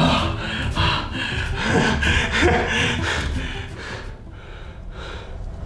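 Hands sweeping and shuffling through loose Yu-Gi-Oh! trading cards scattered on a concrete floor, a rapid papery rustling, with hurried heavy breathing. It quietens about four seconds in as the searching stops.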